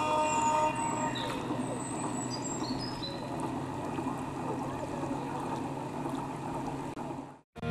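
Steady low outdoor background rumble with birds chirping and whistling over it during the first three seconds; the sound cuts out abruptly just before the end.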